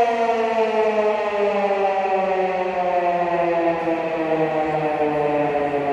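A siren winding down: one long, unbroken tone with several overtones, sliding slowly lower in pitch.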